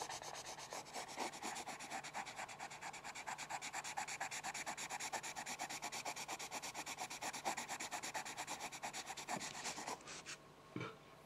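Pencil rubbing rapidly back and forth on paper, about eight strokes a second, stopping about ten seconds in, followed by one soft knock.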